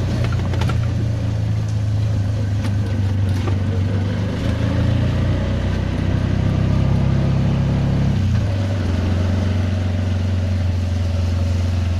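Auto-rickshaw engine running steadily under way, a loud low drone; its note steps down about eight seconds in.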